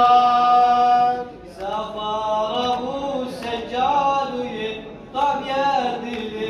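Unaccompanied male chanting of a Shia nawha (lament): a long held note ends the refrain's last word, then after a short break the chant goes on with several men's voices.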